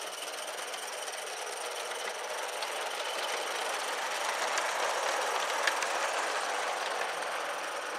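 Accucraft live-steam model of the Lynton & Barnstaple locomotive Lew running, its steam exhaust hissing and chuffing, with a few light clicks from the wheels on the track. It grows louder as the engine passes close by around the middle, then eases off.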